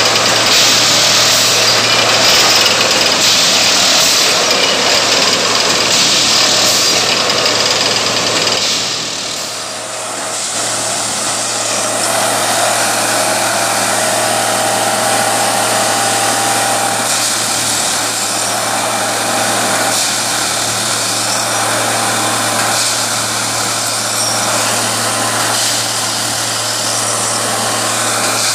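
Plasser 09-32 CSM continuous tamping machine at work: its engine running and its vibrating tamping units packing the ballast under the sleepers, a loud, steady mechanical din with a low hum beneath it. The sound dips and changes about ten seconds in.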